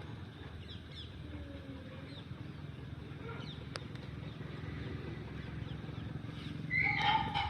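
Outdoor ambience: a steady low rumble with faint bird chirps scattered through it, and a louder pitched call near the end.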